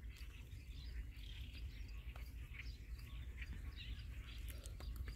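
Faint outdoor ambience: small birds chirping here and there over a steady low rumble.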